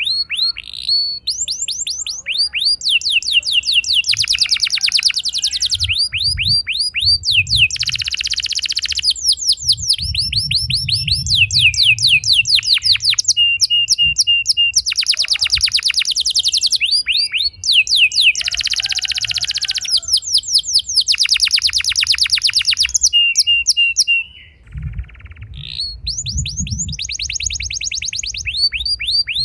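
Domestic canary singing long rolls: rapid trills of quickly repeated notes, switching from one trill type to the next every second or two, with a short break about five seconds before the end.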